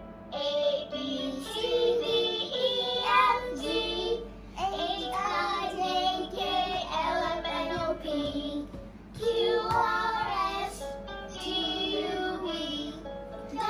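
Musical toy cat playing a children's song through its speaker: a child-like singing voice over a simple backing tune, sung in phrases with short breaks.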